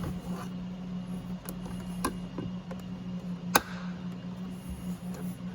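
Plastic door-trim retaining clips popping loose under a trim tool. One sharp snap comes about three and a half seconds in, with a couple of lighter clicks before it, over a steady low hum.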